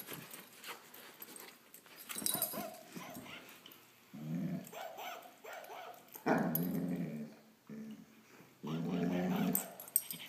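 Great Dane puppy growling in play, four low growls of about a second each, the loudest a little past halfway.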